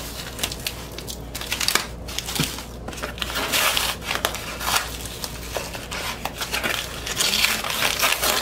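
A cardboard vinyl-record mailer being handled while its packing tape is picked at and peeled off: a run of crackling, scraping and tearing noises with small clicks, loudest in a stretch in the middle and again near the end.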